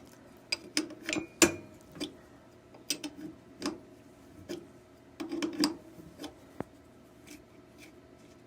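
Irregular metallic clicks and clinks of a wrench turning a nut off a motor-mount bolt held from behind with vise grips.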